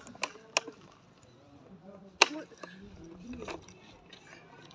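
Plastic toy excavator clicking as its handwheel is turned: a few sharp plastic clicks, the loudest about two seconds in, with faint children's voices.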